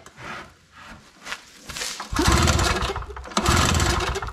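Recoil starter being pulled on a Chicago Electric 800/900-watt two-stroke portable generator, choke on: a couple of light tugs, then two hard pulls about two seconds in and a second and a half later. The engine turns over without starting.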